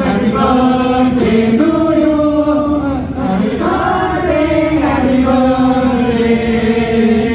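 A crowd singing together in unison, holding long notes that step from one pitch to the next: a birthday song sung to the cake.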